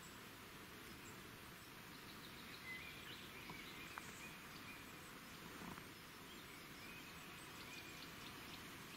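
Quiet outdoor ambience: a steady low hiss with a few faint, thin, high bird calls and a couple of soft clicks.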